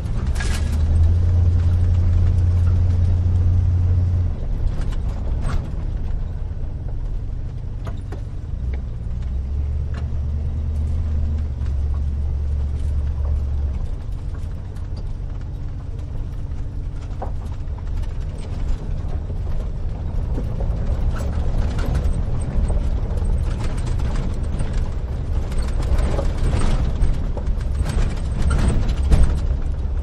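Inside the cab of a 1970 Chevrolet 2500 pickup on the move: a steady low drone of engine and road noise, its pitch shifting now and then, with frequent clicks and rattles from the cab and body.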